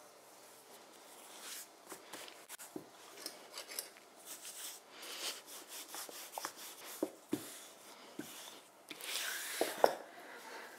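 Wooden rolling pin rolling out pizza dough on a floured wooden board: repeated soft rubbing strokes back and forth with a few light knocks, the strokes loudest near the end.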